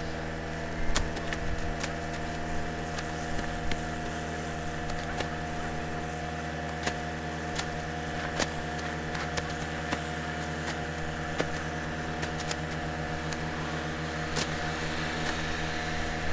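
Large farm machine engine running at a steady speed, with scattered light clicks over the drone.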